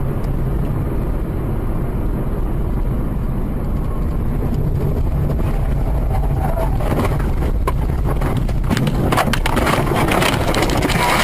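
Car on the move heard from inside: a steady low road and engine rumble, joined from about seven seconds in by rattling and a run of short knocks.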